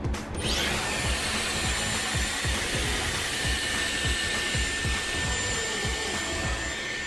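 Dyson Airwrap hair styler switched on about half a second in, then blowing a steady airy whoosh with a faint high whine while it styles a lock of hair.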